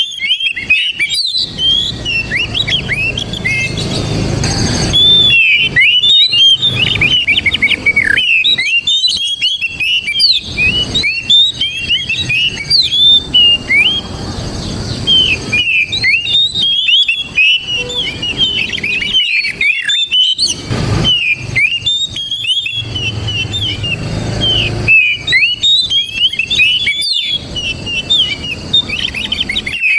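Oriental magpie-robin singing a long, rapid run of whistles and chirps, broken only by short pauses.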